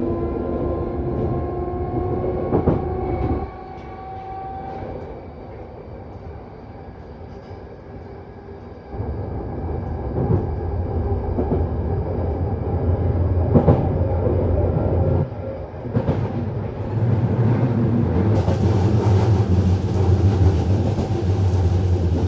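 London Underground 1972 stock Tube train in motion: a whine rising in pitch cuts off about three and a half seconds in, leaving quieter running noise. About nine seconds in a loud low rumble starts and continues, with occasional clacks of the wheels over rail joints.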